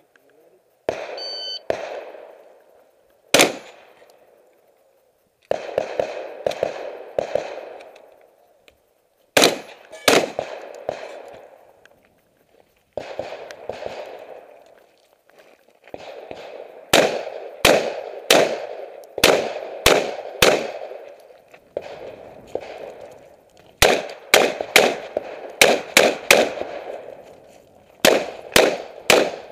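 A shot timer's start beep about a second in, followed by gunfire at a practical-shooting stage. Single shots and fast strings of several shots are fired at targets, each crack trailed by echo.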